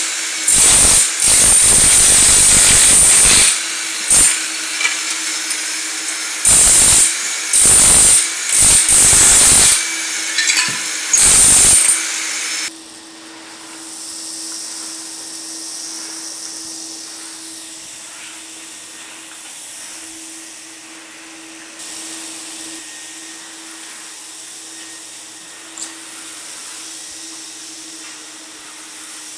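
Electric chipping hammer breaking up ceramic floor tile in a series of loud bursts of a second or two, over the steady hum of a dust-extraction vacuum connected to its shroud. After about twelve seconds the hammer stops and only the vacuum keeps running, much quieter.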